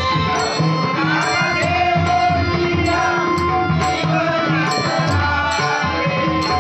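Marathi bhajan music: a slow devotional abhang with held harmonium tones under a wavering sung melody, accompanied by tabla and a barrel drum, with sharp strikes keeping time about every half second.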